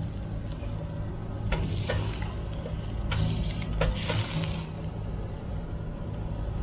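Metal barbecue tongs clicking and scraping against the wire grate of a small charcoal grill as lamb chops are turned, four or five short sharp strokes, over a steady low rumble.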